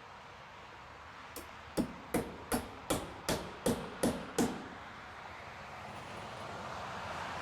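A hammer driving a nail with about eight quick, evenly spaced blows, roughly three a second, over a steady hiss that grows louder near the end.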